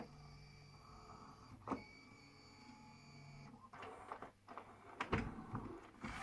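Faint whirring and hum of a LaserDisc player's motor mechanism, stopping about three and a half seconds in, with a few sharp mechanical clicks.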